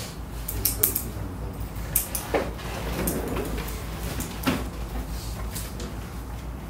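Classroom room noise: scattered sharp clicks and light knocks over a steady low hum, with a faint low murmur around the middle.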